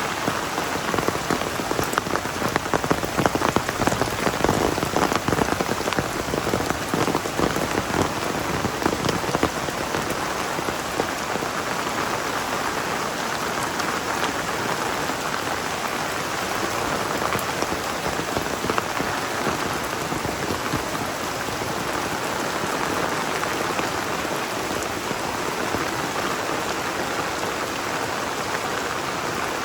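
Heavy rain falling steadily: a dense hiss full of close, sharp drop impacts that are loudest and thickest in the first third, then settle into an even downpour.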